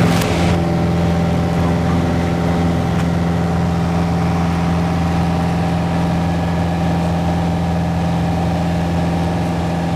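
Piper PA-28-161 Warrior's four-cylinder Lycoming O-320 engine and propeller running steadily at constant power in flight, a continuous unchanging drone heard from inside the cabin.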